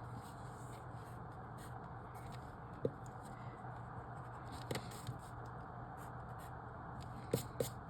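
Pen writing on paper as a logic-grid puzzle is marked up, with a few light taps or clicks, over a steady low room hum.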